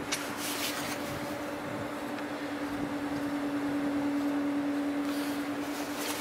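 Steady hum of the MS Fram's shipboard machinery, swelling a little midway, under a wash of noise, with brief gusts of wind hiss on the microphone near the start and near the end.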